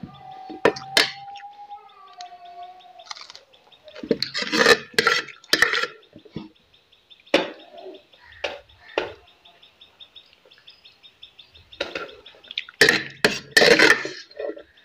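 Metal spoon clinking and scraping against a steel plate in several bursts of sharp clicks while fried rice is scooped up. About half a second in, a held tone lasts roughly two seconds and falls slightly at the end.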